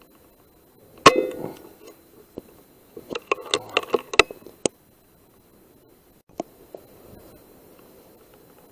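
A single shot from an Air Arms S510 .177 pre-charged air rifle about a second in: one sharp report with a brief ring. About two seconds later comes a quick run of sharp clicks and knocks, and one more click later on.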